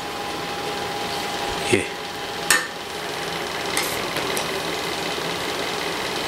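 Metal serving spoon stirring steamed biryani rice in an aluminium pot, knocking against the pot a few times with short sharp clinks, about a second apart, over a steady background hiss.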